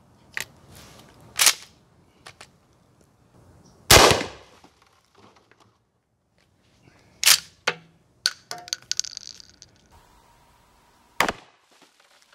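A 12-gauge Mossberg shotgun fires a subsonic slug with a reduced 10-grain powder load: one shot about four seconds in, the loudest sound, with a short echo. Sharper clicks and knocks from handling the gun come before and after it.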